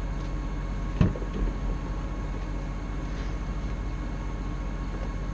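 Steady drone of a running vehicle engine, with a single knock about a second in.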